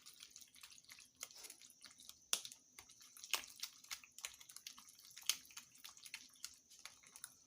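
Faint, irregular clicks and small wet squelches of a utensil working in a bowl of thick yogurt sauce.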